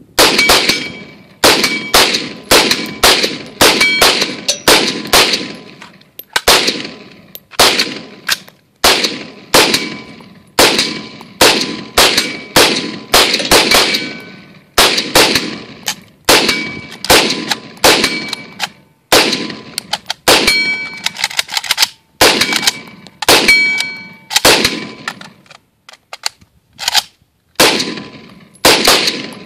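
Sustained rapid semi-automatic rifle fire from AR-15 and AK-47 rifles, about one to two shots a second with a brief pause near the end. Many shots are followed by a ringing metallic ping.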